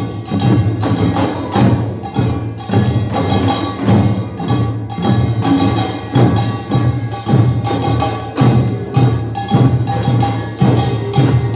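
Korean nongak (pungmul) farmers' band playing, with small hand gongs and drums struck in a steady fast rhythm of about two accented beats a second over ringing gong tones.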